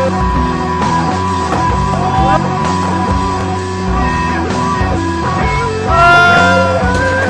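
Rock music: guitar playing sliding, bent notes over bass and drums.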